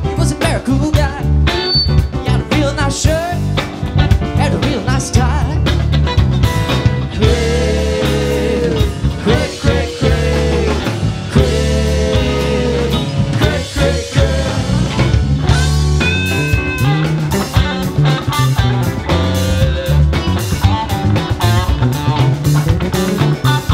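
Live psychedelic jam-rock band playing: two electric guitars over bass, drum kit and keyboards.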